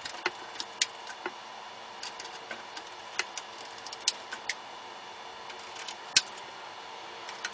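Screws being driven by hand into a computer power supply through the back of the case: scattered, irregular small metal clicks and taps, the loudest about six seconds in, over a faint steady hum.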